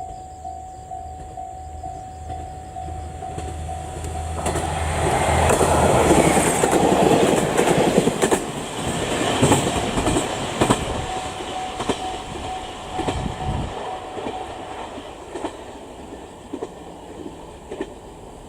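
A JR KiHa 47 diesel railcar passing a level crossing. The low throb of its engine grows as it approaches, then it rumbles past loudly about five seconds in, its wheels clacking over rail joints, and fades away. A level-crossing warning bell rings with repeated strokes through the pass and stops about fifteen seconds in.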